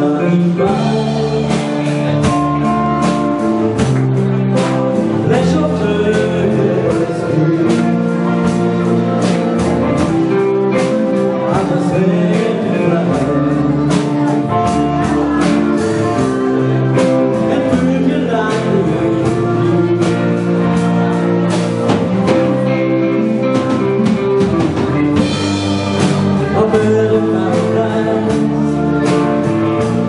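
Live band playing a blues-rock song: a man singing lead into a microphone over electric guitars, keyboard and drum kit.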